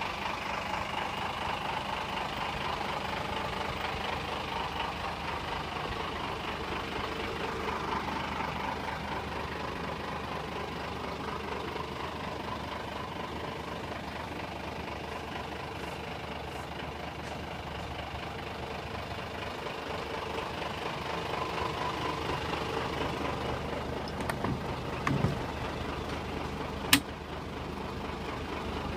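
Vintage Scania truck's diesel engine idling steadily. Near the end there are a few knocks and one sharp clack.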